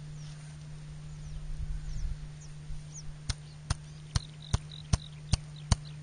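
An open palm slapping the spine of a Kizlyar Condor-3 knife, batoning the blade through a zander's head bones. About halfway through come seven sharp smacks, about two and a half a second.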